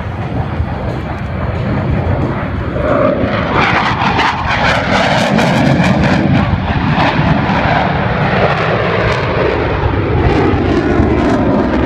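Blue Angels F/A-18 Hornet's twin jet engines roaring as the jet flies past, growing louder about a third of the way in, with the pitch of the engine noise sliding downward as it passes.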